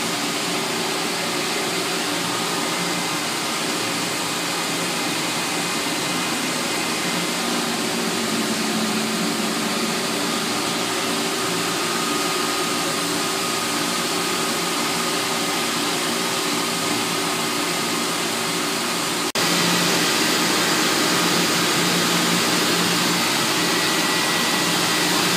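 Höfler Rapid 1250 XL CNC gear grinder running while finish-grinding a helical gear shaft: a steady machine whir with a few held tones under an even hiss of coolant spray. A click about 19 seconds in, after which it runs slightly louder.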